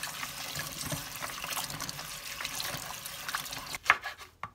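Tap water running into a plastic bowl of cut string beans, a hand swishing them to rinse them. Near the end the water stops and a few sharp knife chops on a wooden cutting board follow, slicing a red onion.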